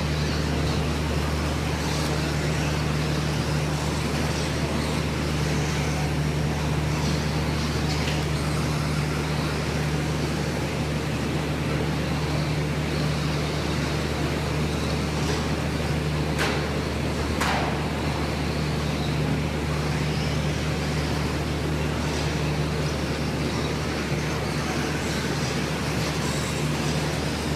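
Steady hum and running noise in an indoor RC raceway hall, with radio-controlled racing trucks running on the dirt track. Two sharp knocks sound about sixteen and seventeen seconds in.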